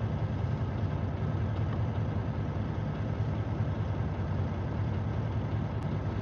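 International semi truck's diesel engine idling at about 500 rpm, a steady low rumble heard from inside the cab.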